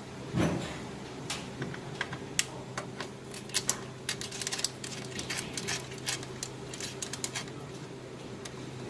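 Irregular light clicks and taps, like small parts being handled and fitted, with a soft thump about half a second in, over a steady low hum.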